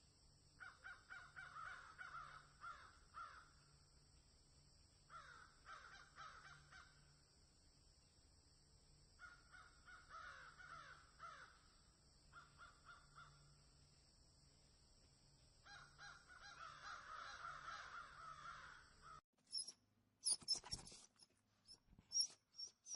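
Crows cawing in five bouts of several rapid harsh caws each, over a steady hiss; the last bout is the longest. Near the end the recording cuts to a run of sharp, loud clicks.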